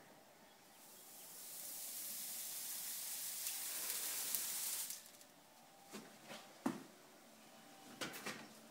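Hot horseshoe sizzling as it is pressed against the hoof: a hiss that builds over about a second, holds steady for about four seconds, then stops. A few sharp knocks follow near the end, the loudest about a second after the hiss.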